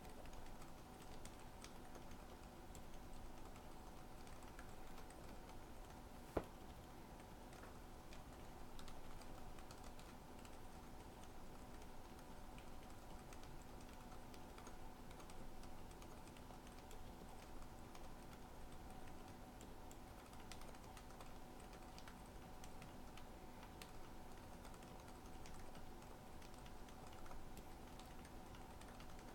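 Typing on a K-Type mechanical keyboard with lubed TTC Silent Red silent linear switches and 72 g springs: a steady stream of quiet, damped keypresses, with one sharper click about six seconds in. A faint steady hum lies underneath.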